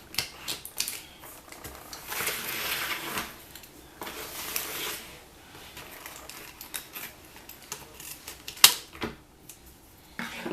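Scissors snipping through a planner's packaging, with a run of small clicks and stretches of rustling as it is cut and handled. One sharp snap near the end is the loudest sound.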